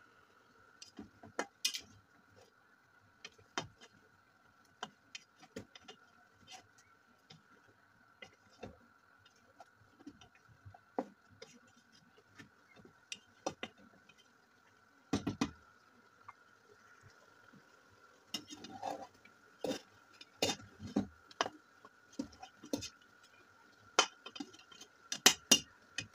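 Metal cooking spoon and slotted skimmer knocking, clinking and scraping against a large metal pot at irregular intervals while meat is stirred.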